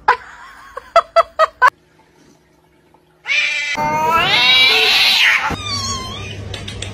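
A cat's long, drawn-out yowl lasting about two seconds, rising and wavering in pitch: a warning cry in a standoff with another cat.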